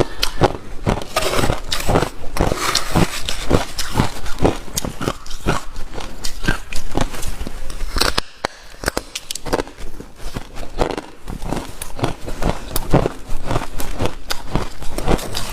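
Ice being bitten and chewed close to the microphone: loud, rapid crunching and cracking, several crunches a second, with a short pause about eight seconds in.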